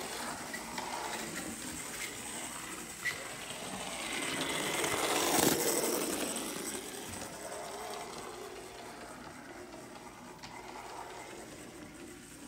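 Vintage Playart 0-4-0 model locomotive chassis running on the track, its motor and freshly greased metal running gear making a steady whirr. The whirr grows louder to a peak about five seconds in, then fades as the chassis runs away. A single click comes about three seconds in.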